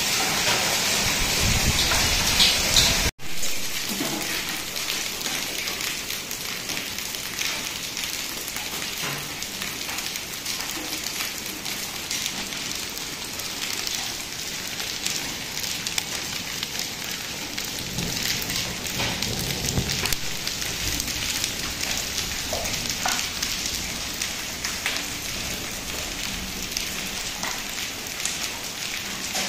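Heavy rain mixed with hail falling on wet concrete and puddles: a steady hiss with a dense patter of small hits. There is a sudden short break about three seconds in, and the rain is a little quieter after it.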